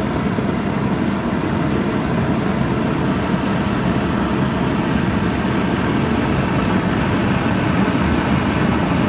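Single-burner propane blacksmith forge burner running at high gas pressure, a steady loud rush of flame and gas with its weight low in pitch.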